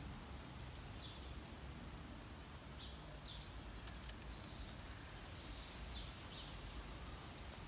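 Small birds chirping in short bursts again and again in the background over a steady low rumble, with one sharp click about four seconds in.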